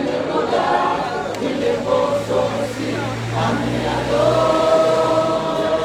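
A crowd of church members singing together, many voices on a slow chant-like hymn. A long held note begins a little past the middle.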